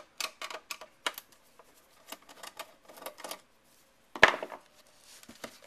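Irregular clicking and tapping of hands and tools on an old Apple floppy disk drive's casing as it is being taken apart, with one loud knock about four seconds in.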